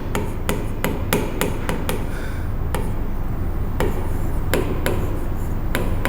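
An irregular series of sharp taps or knocks, quicker in the first two seconds and sparser after, over a steady low hum.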